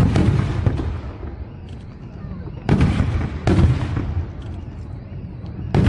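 Firework shells bursting in the sky: a boom at the start, two more about a second apart near the middle, and another at the very end, each trailing off into a low rumble.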